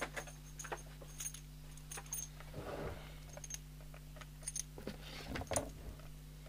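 Handling noise as a coax aerial plug is fitted to the back of a CB radio: scattered light clicks and rattles of the metal plug and leads against the set's case, with the loudest click about five and a half seconds in. A low steady hum runs underneath.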